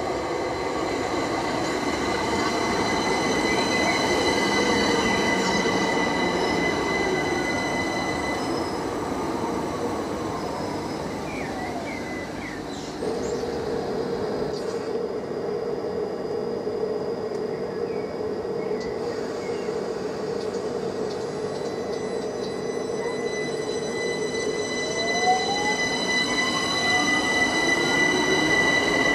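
Southeastern Class 376 Electrostar electric multiple unit braking into the platform with a falling electric whine, standing with a steady hum, then pulling away with a rising whine from about 25 seconds in.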